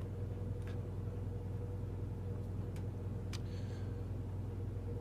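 Steady low hum with a few faint clicks scattered through it.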